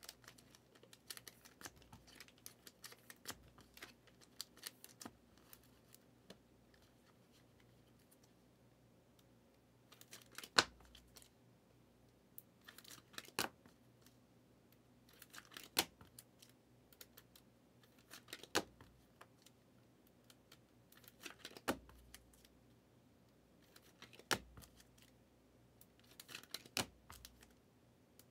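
Trading cards being sleeved and cased by hand: a faint patter of small plastic clicks and rustles, then sharp plastic clicks every two to three seconds as cases snap shut.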